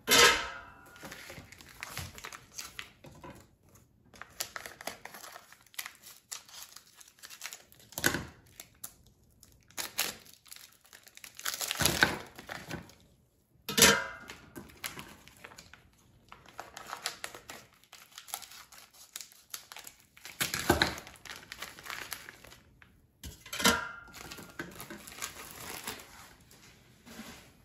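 Plastic packaging crinkling and tearing in irregular bursts as frozen cod fillets are unwrapped by hand and laid in an air fryer basket.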